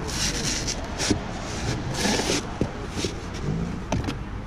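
Glass bottles scraping and rustling against corrugated cardboard dividers as they are slid up out of a bottle box, in a few short bursts with a couple of light knocks near the end, over steady low road-traffic rumble.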